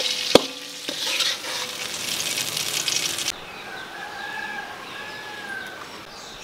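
Hot oil sizzling in the frying pan, with one sharp clink about a third of a second in; the sizzle cuts off abruptly about three seconds in, and birds then chirp faintly.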